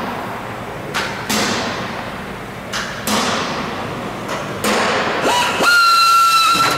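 A few sharp knocks as metal parts are handled and positioned. Then, about five seconds in, a small air drill spins up to a steady high whine, back-drilling holes through aluminium joining pieces.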